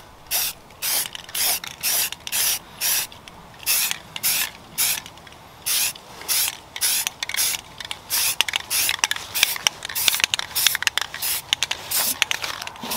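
Aerosol spray-paint can being shaken, its mixing ball rattling in regular strokes about twice a second, quickening over the last few seconds.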